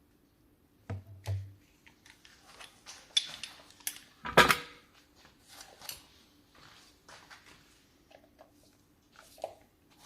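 Scattered metallic clinks and knocks of metal objects being handled, with one loud clank about four and a half seconds in.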